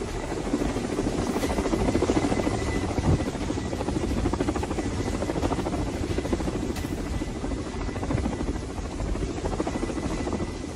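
Military helicopter with coaxial rotors hovering close by, running steadily with a rapid, even rotor chop and a faint steady high tone over it.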